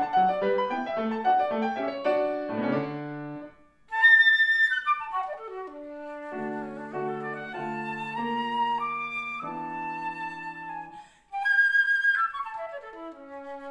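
Flute and grand piano playing classical music. The piano plays alone at first; after a brief break about four seconds in, the flute enters on a high note and runs downward over held piano chords. Near the end, after another short break, the flute comes in high again and descends.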